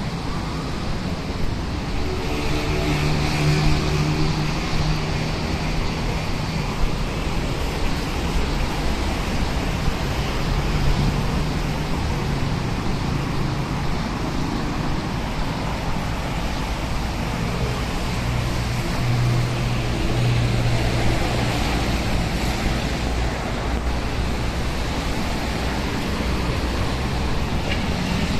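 Steady road traffic from cars and motorbikes passing on a wet multi-lane avenue. A low engine hum swells as heavier vehicles go by, about three seconds in and again around twenty seconds.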